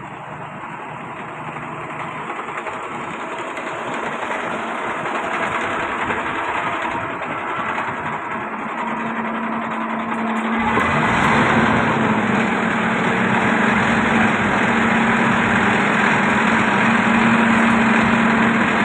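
Concrete pump's engine running steadily with a noisy mechanical hum. About halfway through it grows louder and heavier, a steady low drone joining in as the pump takes up load.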